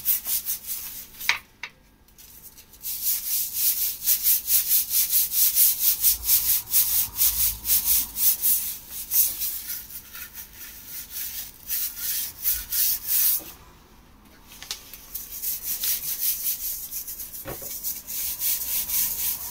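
A brush scrubbing tile grout in rapid back-and-forth strokes, a scratchy rubbing that stops briefly twice, about two seconds in and again about fourteen seconds in.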